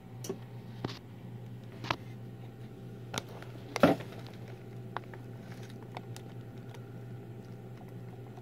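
Handling noise among artificial plants in a mesh reptile enclosure: a few light taps and rustles, the loudest about four seconds in, over a steady low hum.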